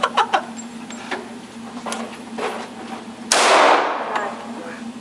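A single gunshot about three seconds in, the loudest sound, fading out with a short echo. Fainter sharp pops come before and after it, and a steady hum runs underneath.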